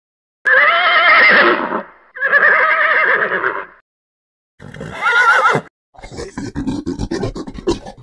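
Horse whinnying three times, each a long quavering neigh, the third shorter. Near the end comes a fast run of soft thumps.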